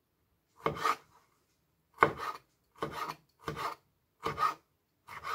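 Chef's knife cutting canned pineapple into small cubes on a plastic cutting board: six short cuts, a little under a second apart, each ending against the board.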